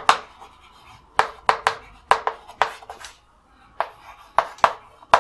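Chalk on a chalkboard: a string of sharp, irregular taps and short strokes as words are written and underlined, with a brief pause a little past the middle.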